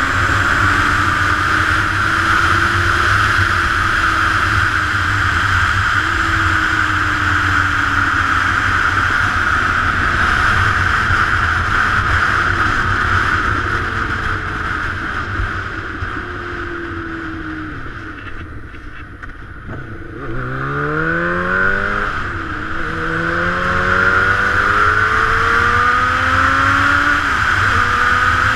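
Sport motorcycle engine heard from the riding bike at speed under heavy wind rush. The engine pitch rises and drops with gear changes, eases off and falls low about two-thirds of the way through, then climbs hard through several quick upshifts.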